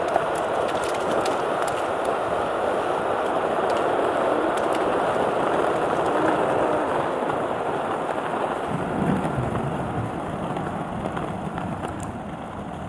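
Skateboard wheels rolling fast over an asphalt path: a steady gritty rumble with scattered small clicks from grit and cracks, getting quieter over the last few seconds.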